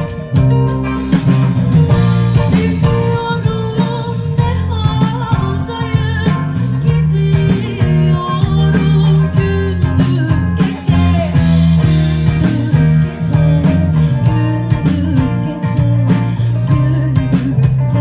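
Live band playing a pop-rock song: a woman sings over electric guitar, electric bass and a drum kit, all amplified through the stage sound system. The bass and drums carry a steady beat, with the sung melody most prominent in the first half.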